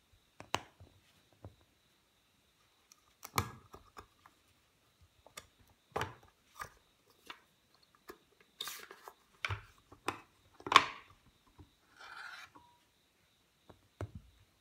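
Scattered light clicks, taps and scrapes of small hard objects being handled and set down at a seal-carving bench. The loudest is a sharp knock about eleven seconds in, followed by a brief soft rustle.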